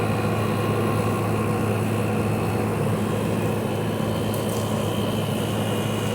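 Window air conditioner running: a steady low compressor hum with fan noise and a faint, steady high whine. The unit blows only ambient air, which the owner puts down to a refrigerant leak.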